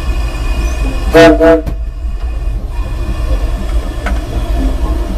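Steam whistle of the Disneyland Railroad locomotive Ernest S. Marsh #4 sounding two short blasts about a second in, the signal for the train to move off, over the steady low rumble of the locomotive heard from its cab.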